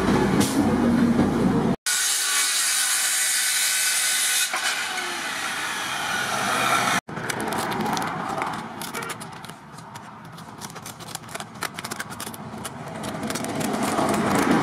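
A loud steady hiss for the first several seconds, then scissors snipping through a sheet of sandpaper in a run of quick, sharp cuts as it is trimmed into a round sanding disc.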